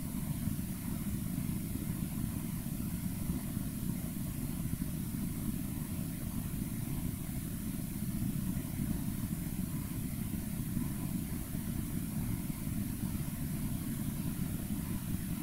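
Steady low rumble with a faint high hiss above it, even and unchanging, with no distinct events.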